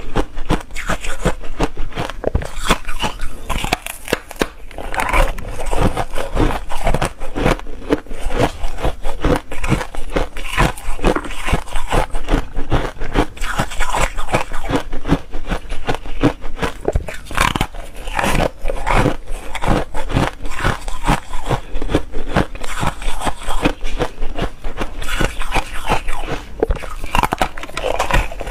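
Close-miked crunching and biting of frozen foam ice, many brittle crunches in quick succession as pieces are bitten and chewed.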